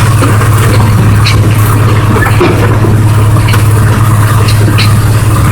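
Steady drone of a moving train's locomotive engine with a continuous rolling rumble, and a few short sharp clicks over it.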